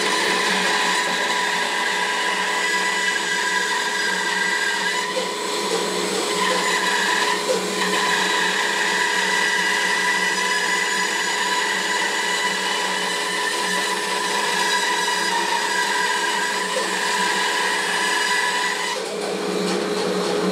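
Bandsaw ripping a 3.5 to 4 inch thick block of green sweet gum, a steady machine whine while the blade is under load. About nineteen seconds in the higher whine drops away as the cut finishes, and the saw runs on freely.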